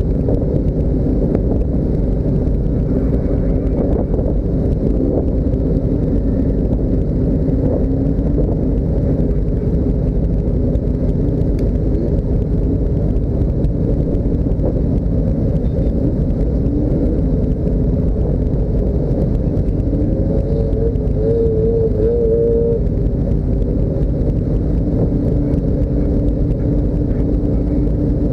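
Motor vehicle running steadily: a continuous low rumble with engine tones that drift slightly in pitch.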